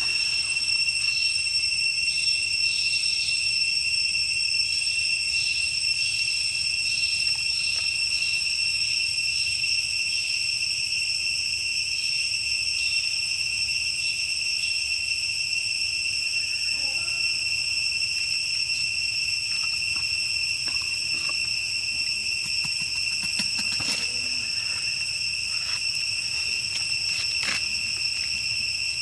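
Steady, high-pitched drone of insects in the forest: one constant tone with higher overtones, unbroken throughout. A few faint rustles come near the end.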